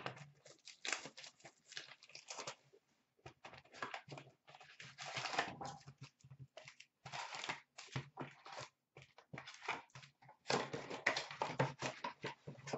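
Plastic wrappers of Upper Deck hockey card packs crinkling and tearing as packs are torn open and handled, in a run of irregular rustles that grows louder and denser near the end.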